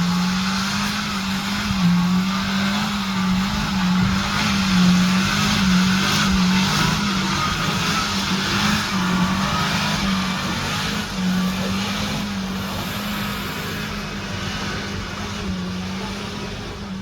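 Off-road vehicle's engine running hard under load, its note rising and falling slightly with the throttle, with a steady hiss over it.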